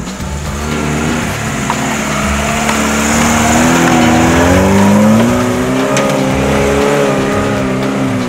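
Lada Niva off-roader's engine revving as it drives close past and away. Its pitch climbs to a peak, loudest about five seconds in, then falls back.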